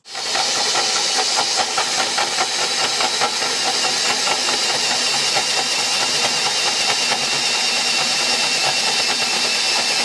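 Electric drill in low gear turning a hole saw for metal through the bus's steel sheet: a steady grinding screech of the saw's teeth cutting steel.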